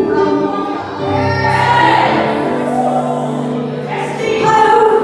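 A choir singing a gospel song, many voices holding long notes together.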